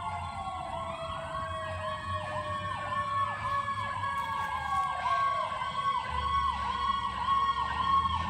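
Emergency vehicle sirens approaching and growing louder: an electronic siren cycling rapidly up and down in a yelp, over a Federal Q mechanical siren winding down in a long, slow fall in pitch.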